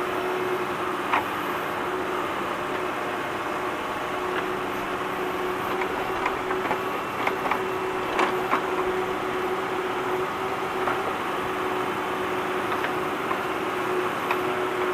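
Tractor engine running steadily while it digs, with scattered sharp knocks and clanks from the working equipment.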